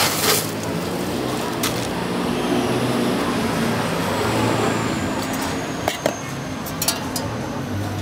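Busy street ambience of traffic hum and distant voices. A short rush of crushed ice tips into a plastic cup at the start, and a few sharp clinks of ice and a metal spoon follow in the last few seconds.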